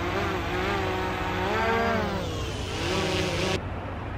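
Small DJI quadcopter drone hovering just after take-off, its propellers making a buzzing whine that rises and falls in pitch as it holds position. The whine drops away abruptly about three and a half seconds in.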